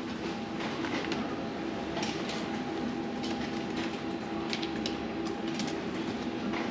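Steady indoor machine hum holding a few constant tones, with scattered light clicks and clinks over it.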